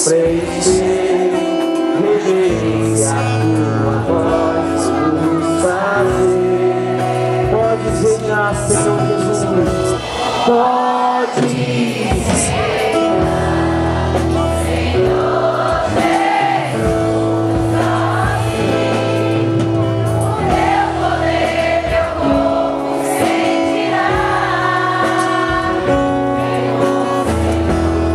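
Christian worship song: singing over band accompaniment, with long held bass notes that change every few seconds.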